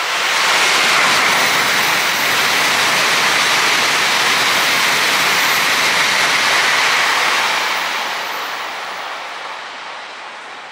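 N700-series Tokaido Shinkansen train passing through the station at high speed: a loud rush of wheels on rail and air, with no horn or engine note. It holds at full strength for about seven seconds, then fades away.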